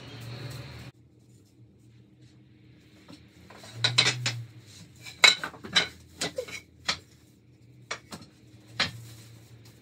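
Wooden boards and a dowel knocking and clattering as they are handled and set down: a run of sharp irregular knocks, loudest about five seconds in. A low hum stops about a second in.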